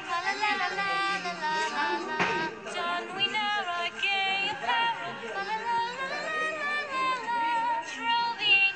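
Background music: a song with a high singing voice over instruments.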